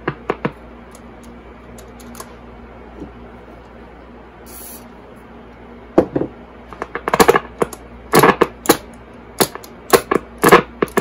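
Vintage Zenith Trans-Oceanic H500 tube radio giving off a steady low hum and hiss between stations. About halfway through come loud, irregular crackles and clicks, several a second, as its controls are worked.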